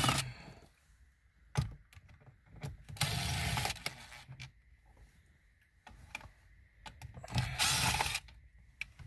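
A cordless drill/driver with a T20 Torx bit spinning out the radio mounting screws. It runs in three short bursts of about a second each, at the start, about three seconds in and near the end, with small clicks of the bit and screws in between.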